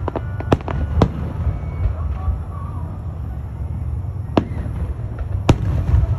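Aerial fireworks shells bursting: sharp bangs, two within the first second and two more about four and a half and five and a half seconds in, over a continuous low rumble.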